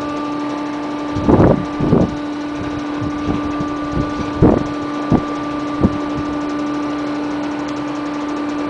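Steady machine hum, with several dull thumps in the first six seconds.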